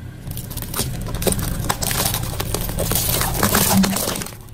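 Car tyre rolling over and crushing a row of eggs covered in small plastic caps: a dense, continuous run of cracks and crunches lasting about four seconds, over a steady low rumble from the car.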